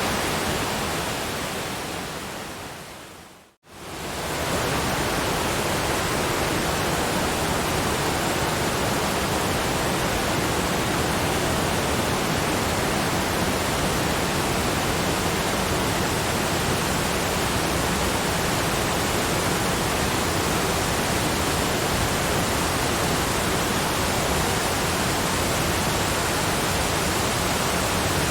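Steady rushing of a waterfall, an even hiss-like roar of falling water. About two seconds in it fades away to silence, then swells back within half a second and runs on steadily: the seam where the recording loops.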